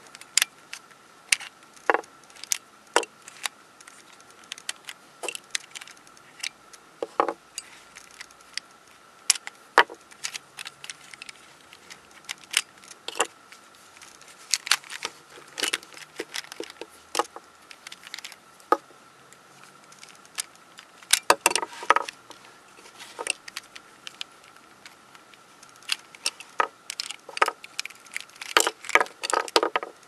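Plastic pieces of a MoYu Weilong 3 speedcube clicking and clacking as the cube is taken apart by hand and its edge and corner pieces are pulled out and set down. The clicks come at irregular intervals, with quick flurries about halfway through, two-thirds of the way through and near the end.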